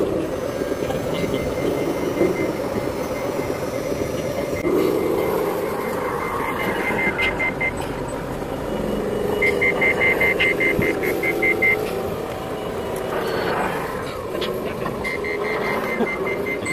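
Scale RC dump truck's reversing alarm beeping, about four high beeps a second, in three runs, over a steady engine-like drone from the truck.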